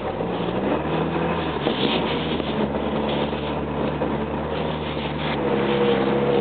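Off-road 4x4 engine running under load, heard from inside the cab. Its pitch rises as it picks up revs just after the start, holds steady, and rises again near the end.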